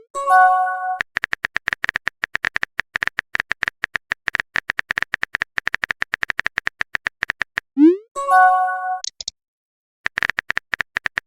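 Messenger sound effects for a text chat: rapid keyboard-tap clicks, then a short rising swoosh and a brief chime as a message is sent, about eight seconds in. A short high ping follows, and the tapping starts again near the end.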